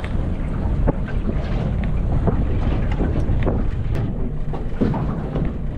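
Wind buffeting the microphone over the low, steady run of a Mercury outboard motor at slow trolling speed, with water splashing against the small boat's hull.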